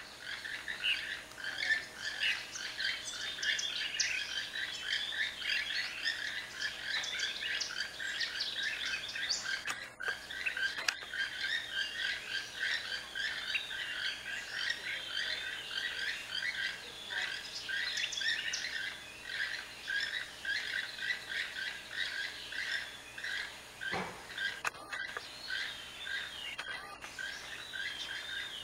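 A group of toucans calling to each other: overlapping frog-like croaking calls, several a second, keeping up without a break.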